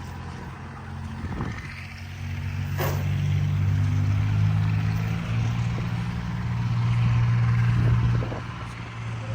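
An engine running steadily, getting louder about two seconds in, with one sharp click near three seconds in.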